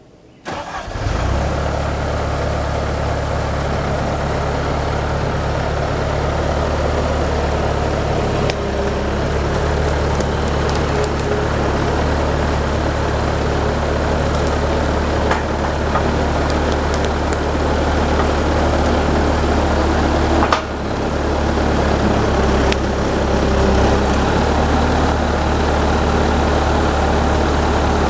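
Engine of a large fork-equipped machine running steadily and loudly, with a short dip about 20 seconds in.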